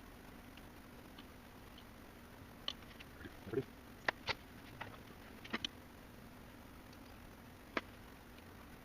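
Scattered light clicks and taps of small hard parts or tools being handled, about a dozen between roughly two and a half and eight seconds in, over a faint steady hum.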